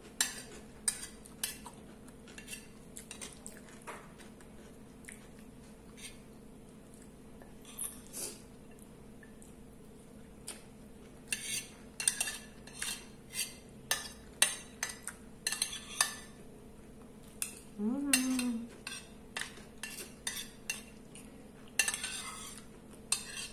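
Metal spoon clinking and scraping against a ceramic plate in sharp, irregular clicks, scooping up the last of the food.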